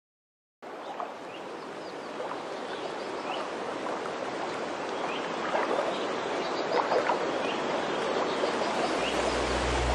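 Running-water ambience of a stream, gradually fading in and growing louder, with scattered short high chirps over the flow. A low music note starts near the end.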